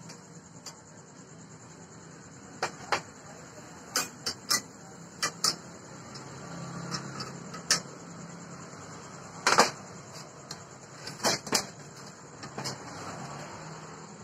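Irregular metal clicks and knocks as the parts of a homemade steel drill-press stand are handled and fitted together, with the loudest, a short clattering cluster, about two-thirds of the way through. A steady faint high hiss runs underneath.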